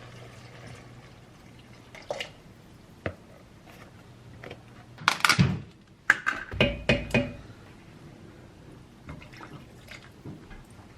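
A handful of knocks and clinks of hard objects being handled and set down, loudest in a cluster about five to seven seconds in, where some of the clinks ring briefly.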